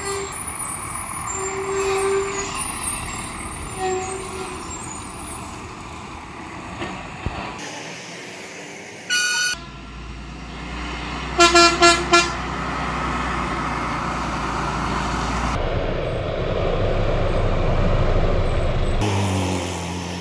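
Heavy truck engines running on a mountain road, with vehicle horns: one short honk about nine seconds in and three quick toots around twelve seconds.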